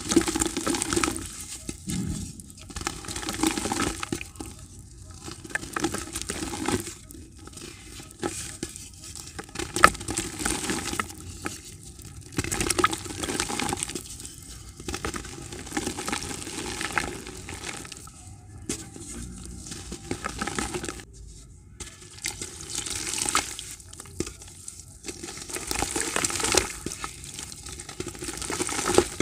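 Soft grey dirt blocks squeezed and crumbled by hand, crunching in repeated bursts every two to three seconds as powder and fragments fall into a bucket.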